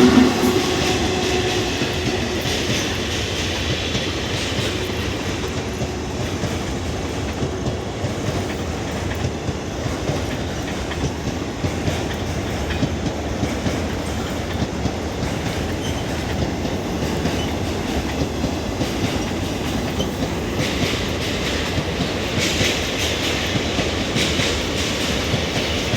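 Freight train's wagons rolling steadily across a river bridge: a continuous rumble with wheels clacking over the rail joints and the steel span. About twenty seconds in, a brighter, higher-pitched rattle joins.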